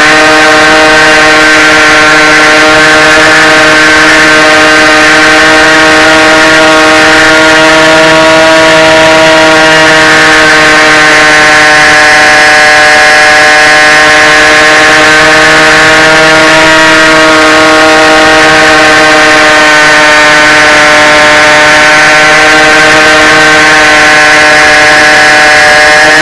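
Brushless electric motor and propeller of an FPV fixed-wing RC plane in flight, a steady whine heard close through the onboard camera's microphone, with rushing wind noise underneath.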